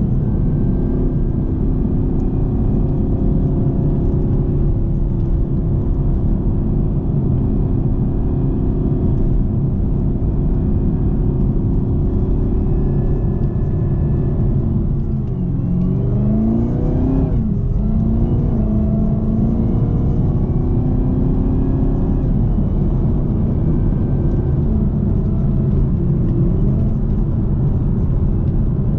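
2018 Camaro ZL1's supercharged 6.2-litre V8 running under way with heavy low rumble. About halfway through, its pitch dips and then climbs back up, as at a gear change, before it settles into steady cruising.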